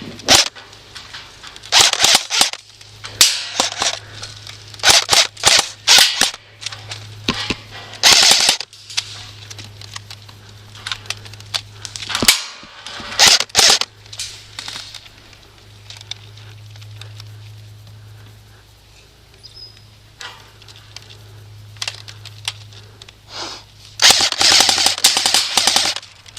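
Airsoft guns firing in a running exchange: short rapid bursts and single sharp pops, coming in clusters every few seconds, with a longer burst of about two seconds near the end.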